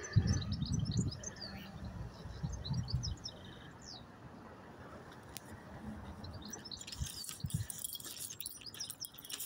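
Small birds chirping in quick runs of short, high chirps, in the first few seconds and again about seven seconds in, over low, uneven rumbling in the first three seconds.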